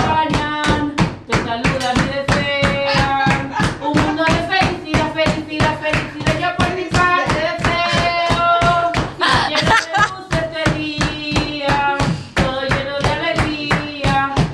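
A group of people singing a song while clapping a fast, steady beat in time.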